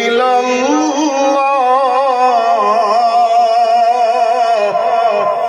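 A man reciting the Quran in the melodic tajweed style, drawing one phrase out into a long sung note. The pitch rises in the first second, then holds with a slight waver.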